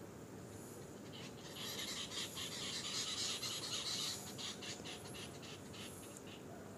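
An animal call: a rasping, rapidly pulsed high sound that starts about a second in, is loudest in the middle and fades out near the end.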